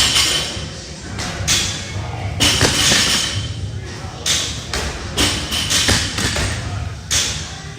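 Repeated heavy thuds of workout equipment, roughly one a second, with voices mixed in.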